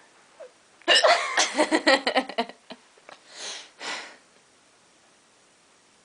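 A woman hiccuping and giggling: a quick run of short, sharp bursts about a second in, followed by two breathy breaths.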